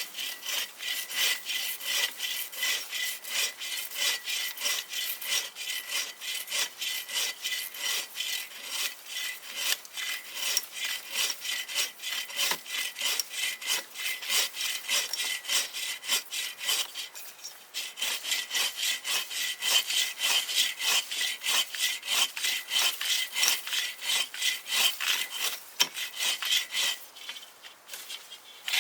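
Hand saw cutting through wood in quick, even back-and-forth strokes, about three a second, with brief pauses about 17 seconds in and near the end.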